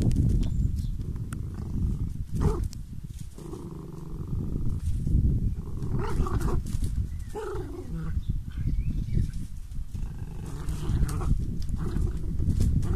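Two small dogs growling and snarling at each other in play-fighting, in repeated rough bouts.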